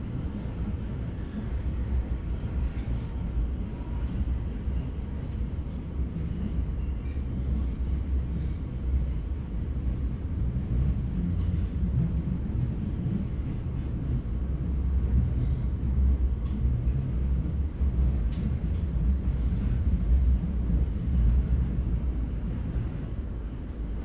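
Interior of a moving Oslo Metro MX3000 train: the steady low rumble of wheels on rail and running gear heard from inside the car. It swells louder in the middle and eases off near the end, with a few faint clicks and rattles.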